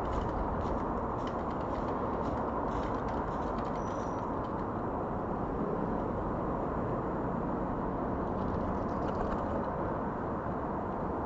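Steady outdoor background rumble, with faint light ticks in the first few seconds and one brief high chirp about four seconds in.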